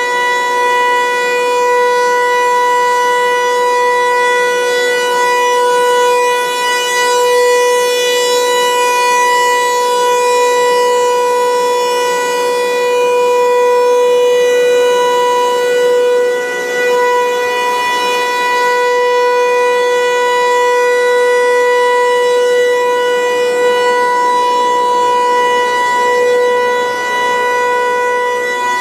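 Federal Signal 508 rotating outdoor warning siren sounding a steady single-tone alert during a siren test, the pitch holding level while the loudness swells and dips about every ten seconds as the head turns.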